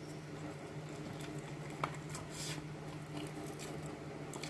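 Soft mouth sounds of a person eating, chewing and sucking meat off a chicken bone, with small wet clicks and a brief sucking hiss about two and a half seconds in. A steady low hum runs underneath.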